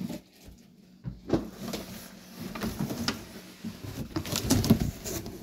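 Large cardboard box being handled: rustling and scraping of the cardboard with several knocks, loudest near the end.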